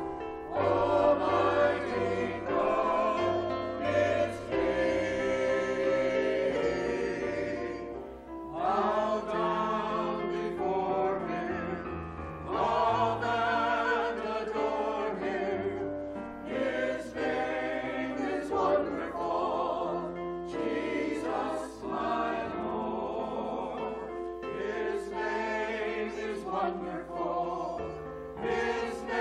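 Small church choir of men and women singing together, phrase after phrase with brief breaks between.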